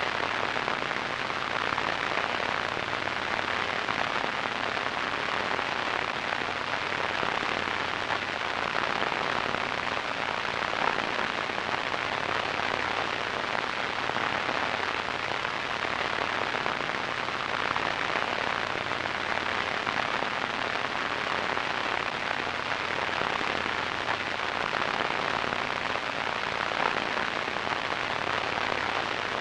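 Radio static: a steady crackling hiss, even in level, with most of its energy in the middle and upper-middle range.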